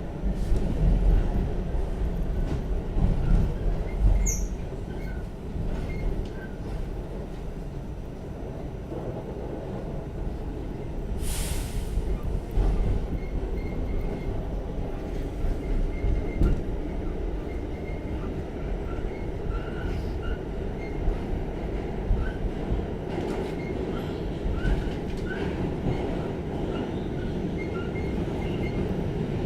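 R46 subway car running, heard from inside: a steady rumble of wheels on rail with short faint wheel squeals, and a brief hiss about eleven seconds in.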